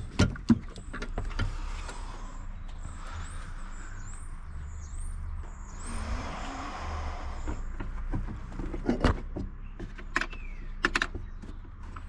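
Scattered knocks and clanks of tools and metal parts being handled while dismantling a car's engine bay, a few sharp ones near the start and a cluster near the end, over a low steady hum.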